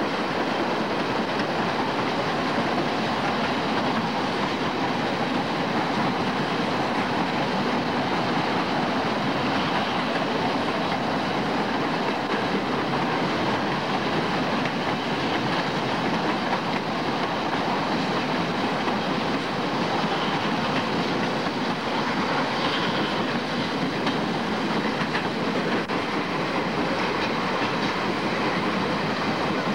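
A steam-hauled excursion train on the move, a steady, unbroken train noise with no let-up or change.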